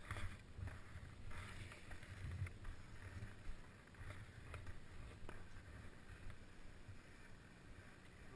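Soft hiss and scrape of snow under a slow downhill slide on a groomed piste, with an uneven low wind rumble on the microphone and a few faint ticks.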